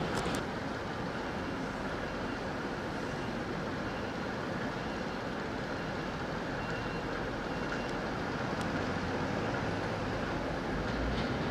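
TransPennine Express Class 185 diesel multiple unit approaching slowly over pointwork, its diesel engines running with a steady rumble that grows stronger near the end.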